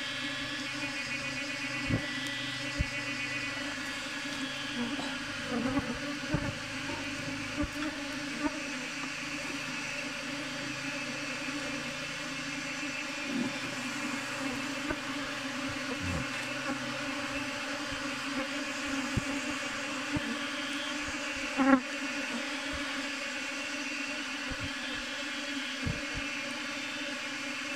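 Swarm of honey bees buzzing steadily around a wooden hive box. Scattered knocks and rustles from the box and branches being handled come through it, the loudest a sharp knock about three quarters of the way through.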